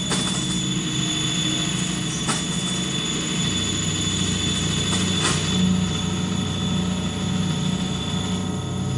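Dense, steady noise drone from a live noise-music performance: a low rumbling hum that thickens about three and a half seconds in, a thin high whine held throughout, and two brief clicks, at about two and five seconds in.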